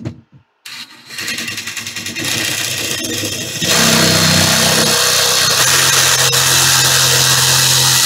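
Cordless power tool running and cutting into drywall to widen the hole for an electrical box. It starts about half a second in and gets louder under load a few seconds later, holding steady after that.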